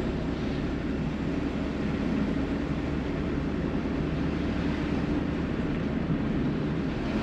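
Car engine and road noise heard from inside the cabin while driving at low speed: a steady low hum.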